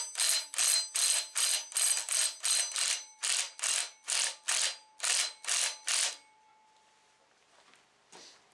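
A ratchet wrench working in quick strokes, about three clicking runs a second, as it backs out the last flywheel bolt. The strokes stop about six seconds in.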